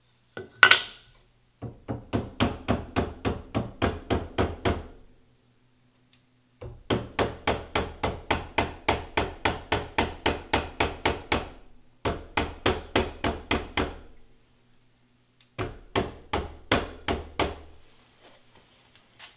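Soft-faced mallet rapping in quick runs of about four blows a second, with short pauses between runs, driving a tight-fitting BCM KMR Alpha handguard rearward over an AR-15 barrel onto its barrel nut. One sharper knock less than a second in is the loudest.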